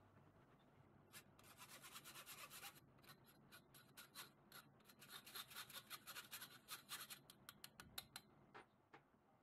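Cocoa powder and flour being worked through a fine metal mesh sieve, a spoon scraping against the mesh: faint, quick runs of scratchy rubbing strokes, dying away near the end.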